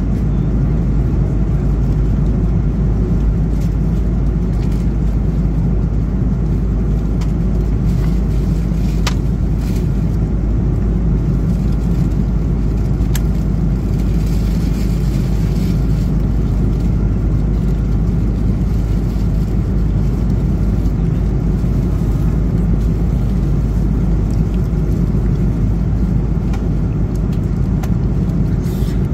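Airbus A330-200 cabin noise: the steady, loud, low rumble of the engines and airflow heard from a passenger seat, with a couple of faint clicks.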